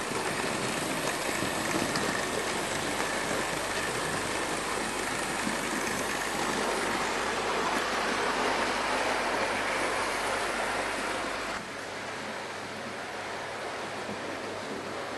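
Hornby OO gauge model steam locomotive, a DC-powered Princess Royal Class, hauling its coaches round the track: a steady whirring rumble of motor and wheels on the rails. After about twelve seconds it suddenly drops quieter.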